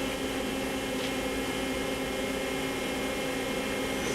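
Star SV32J CNC Swiss lathe running steadily: a constant machine hum with several steady tones that hold level, no rise or fall.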